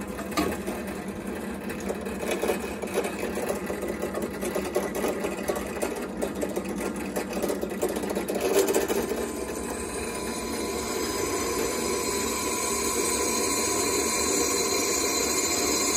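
Benchtop drill press running, with knocks as a steel square tube is shifted on its table; from about ten seconds in the bit cuts into the steel and a steady high-pitched cutting whine rides over the motor. The bit is cutting dry, without oil.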